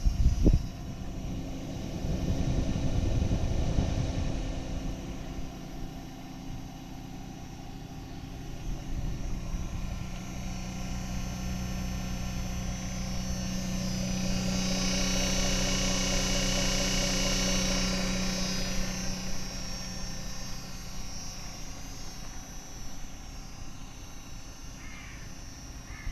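4-ton Hitachi heat pump outdoor units running in cooling mode: a steady drone of fans and compressors with several steady tones. About halfway through, a high-pitched whine and a low hum swell up for several seconds and then fade.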